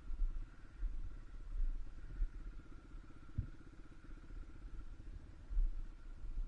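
Engine of an off-road riding vehicle running steadily at low speed, with a fast, even pulsing and a faint steady whine above it. Low uneven rumbles run underneath, and a single sharp knock comes about three and a half seconds in.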